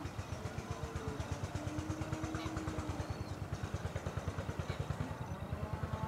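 A small engine running steadily, with an even low pulsing beat of about nine a second.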